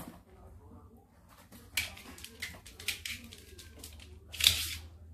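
Cat scratching in cat litter in a litter box: a few short scratchy rustles, the loudest about four and a half seconds in, over a low steady hum.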